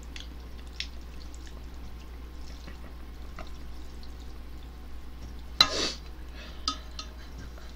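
Eating instant ramen from a metal pot: faint clicks of chopsticks against the pot, and one loud slurp of noodles about five and a half seconds in.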